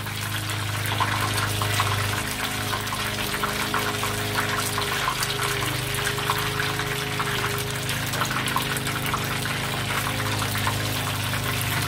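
Battered squid rings deep-frying in hot oil: a dense, steady crackling sizzle, with a steady low hum underneath.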